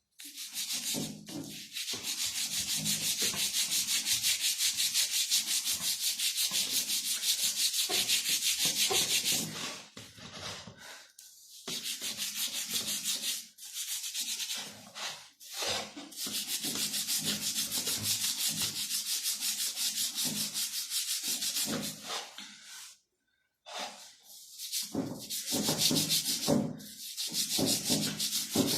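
Fast, even scrubbing and rubbing on the metal back hub of a CG 125 motorcycle as cleaner and polishing compound are worked in. It comes in long runs, easing off briefly about ten and fifteen seconds in and stopping for a moment near twenty-three seconds.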